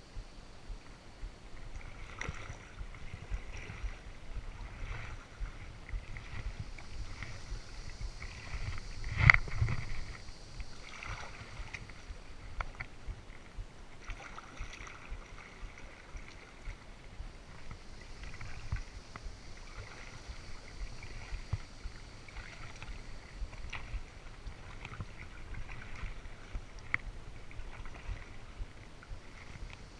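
Kayak paddle strokes dipping and dripping in calm water, a soft splash every second or two, with one sharper, louder sound about nine seconds in. Low wind rumble runs underneath.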